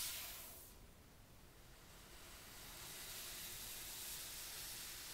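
A short brushing swish as the cardboard phone box is set down and let go, then a faint steady hiss that slowly grows louder.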